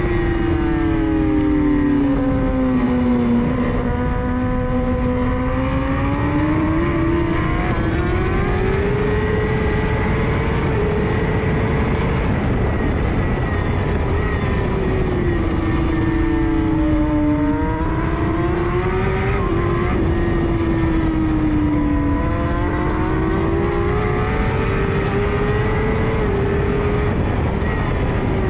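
Kawasaki ZX-10 inline-four sportbike engine at racing speed, its pitch climbing through the gears and dropping again under braking several times, over heavy wind rush.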